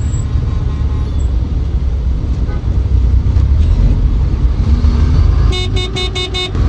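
Danfo minibus engine and surrounding road traffic rumbling steadily. Near the end a vehicle horn honks in a quick run of about five short toots.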